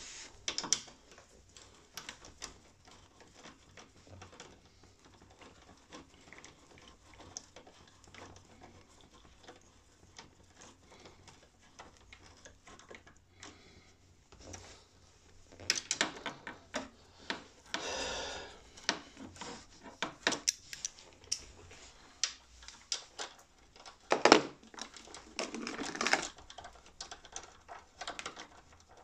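Scattered metallic clicks and taps of hand work on a motorcycle's Brembo front brake caliper as its mounting bolts are fitted, busier in the second half, with a short rasping stretch midway and one louder knock near the end.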